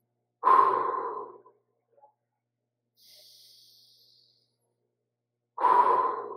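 A man breathing deeply in a slow breathwork rhythm. Two loud exhales about five seconds apart each start suddenly and fade over about a second, with a fainter hissing inhale between them.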